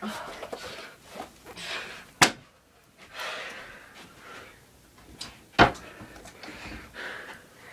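Two loud, sharp thuds about three seconds apart, like objects slammed or thrown down, with softer rustling and shuffling footsteps between.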